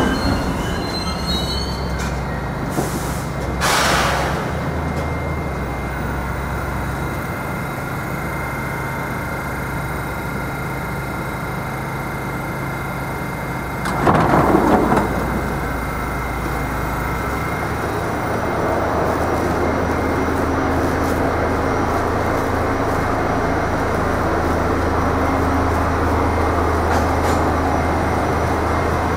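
R68 subway train standing in the station with a steady low electrical hum. Two short bursts of noise break in, one about four seconds in and a longer one about fourteen seconds in, and the hum grows a little stronger in the second half.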